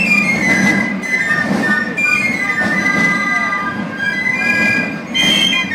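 Several piccolos of a Basel carnival fife-and-drum clique playing a tune together in high, sustained notes, with drums beneath.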